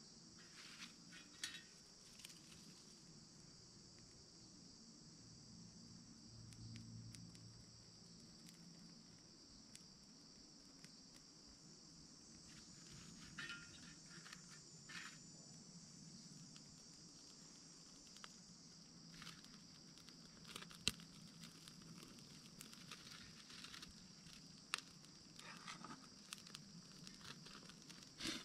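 Faint, steady, high-pitched insect chorus in summer woodland, with scattered small clicks and taps from hands working twigs at a small wood-burning stove.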